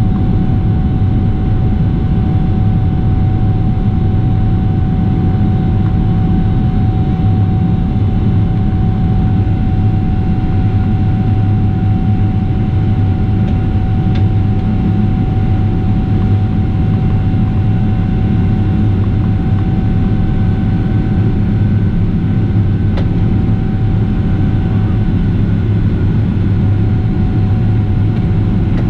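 Cabin noise of a Boeing 777-300ER climbing after takeoff, heard from inside at a window seat: the steady, loud rumble of its GE90-115B engines at climb power mixed with airflow, with a thin steady whine over it that fades out near the end.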